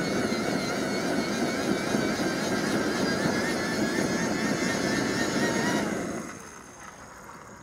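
Hand-crank grill blower fan being cranked, a steady rush of air with a wavering whine from its gearing, forcing air into burning hardwood lump charcoal to get it lit fast. It winds down and stops about six seconds in.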